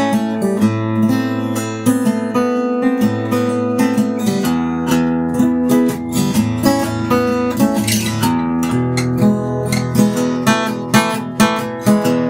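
Kay 000 (OM-sized) acoustic guitar, with a solid spruce top and laminated mahogany back and sides, X-braced and strung with light phosphor bronze strings, being played: picked notes and strummed chords, changing chords every second or two.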